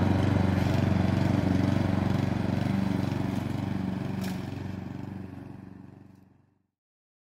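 Lawn mower engine running steadily while mowing grass, fading out about six seconds in.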